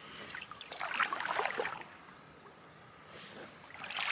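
Wooden canoe paddle stroking through calm water: a splashing, dripping stroke about a second in and another near the end.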